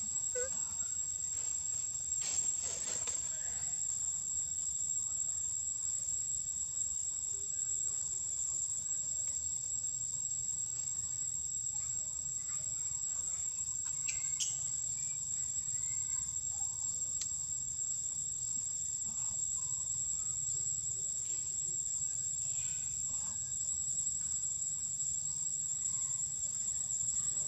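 Insects buzzing in one steady, high-pitched drone, with a couple of brief faint clicks.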